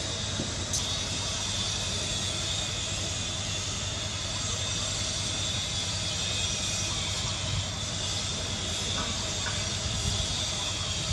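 Steady outdoor background: a constant hiss with a high, even drone over a low rumble, and one faint click about a second in.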